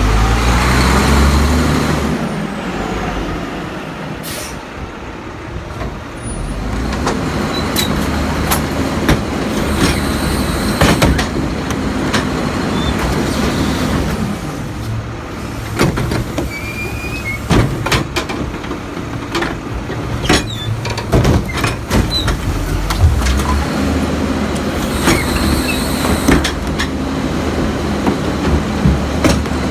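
Crane Carrier garbage truck's diesel engine running, louder near the start, while the Leach rear loader's cart tippers dump wheeled carts into the hopper, with many metal knocks and clanks of carts and tipper. A hiss sounds twice, near the start and near the end.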